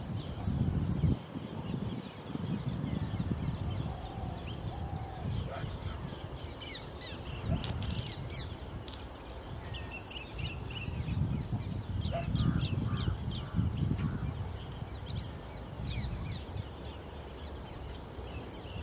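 Outdoor ambience: birds chirping over and over and insects trilling in pulsed bursts, over a low rumbling noise that swells and fades several times.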